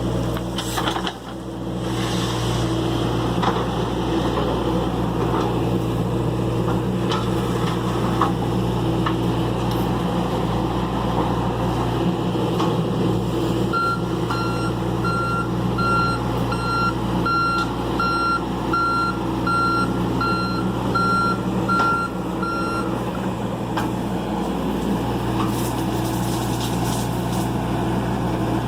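Excavator diesel engine running steadily under work, with a backup alarm beeping evenly for about nine seconds from halfway through.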